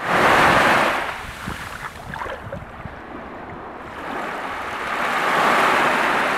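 Small waves breaking and washing up a sandy beach: a loud wash of surf right at the start that ebbs away, then the next wave building and rushing in from about four seconds in.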